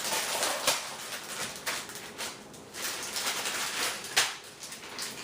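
Plastic wrappers of small Skittles packs crinkling and rustling as they are handled and opened, with a few sharp clicks and snaps.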